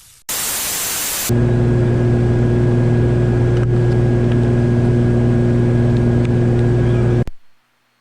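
Steady drone of the Cessna 414A's twin piston engines and propellers heard inside the cabin, after a second of hiss; it cuts off suddenly near the end.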